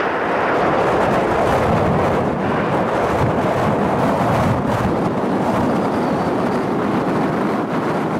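Airbus A340-300 on final approach and landing flare, its four turbofan engines giving a steady jet rush that swells slightly about a second in and holds.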